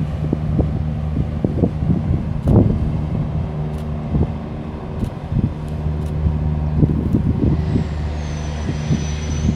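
A steady low engine drone with a fixed pitch, buffeted by irregular gusts of wind on the microphone. Near the end a thin high tone slides down and then holds.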